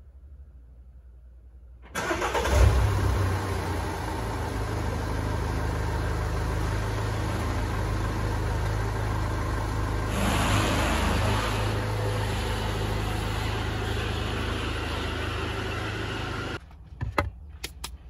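Mini Countryman's engine starting about two seconds in, with a brief rev as it catches, then idling steadily in an underground car park. The engine sound stops abruptly near the end.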